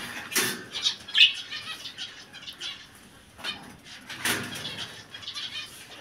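Small cage birds fluttering their wings inside a wire cage, in a few short flurries, the loudest about four seconds in.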